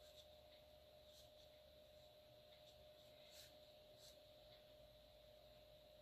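Near silence: room tone with a faint steady hum, and a few faint, brief scratches of a fine-tip pen drawing on watercolor paper.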